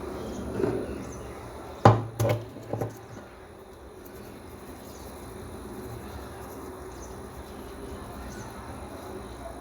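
A few sharp knocks close together about two seconds in, the first the loudest, over a low steady background noise.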